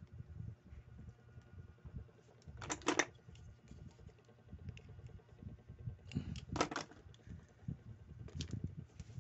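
A Daiwa World Spin 4000 spinning reel being handled while its bail is refitted and its rotor turned. There are two short bursts of rapid metallic clicking from the reel's mechanism, about 3 seconds and 6.5 seconds in, and a few lighter clicks near the end, over soft handling knocks.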